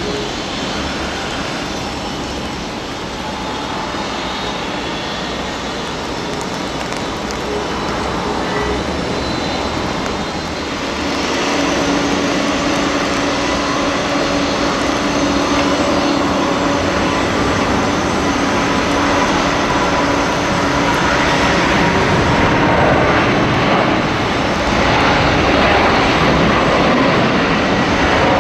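Jet engines of a Boeing 747-400 running on the ramp: a steady rushing noise with a thin whine, growing gradually louder, with a low steady hum joining partway through.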